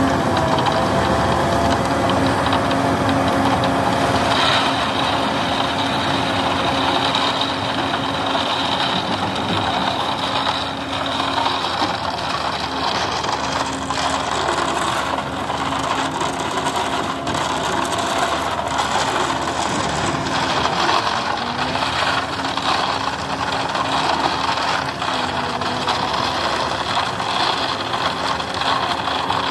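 Heavy diesel construction machine running steadily, with some rattling.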